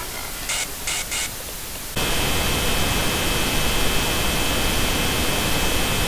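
Static on a lost television broadcast signal: a soft hiss with a few short crackles, then about two seconds in it jumps to loud static with a steady high whine.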